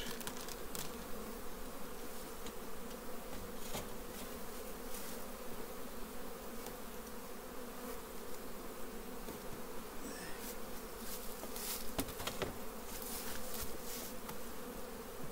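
Steady hum of Carniolan honeybees from an open hive, with a few sharp clicks of a hive tool prying at the wooden frames.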